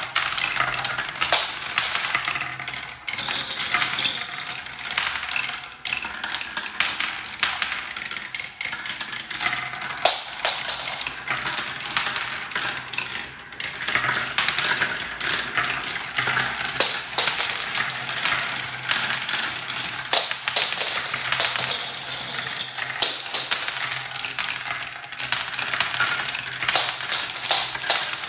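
Glass marbles rolling and clattering continuously through a plastic marble run, rattling down clear plastic tubes and zigzag tracks with a constant stream of sharp clicks and taps as they drop and strike the pieces.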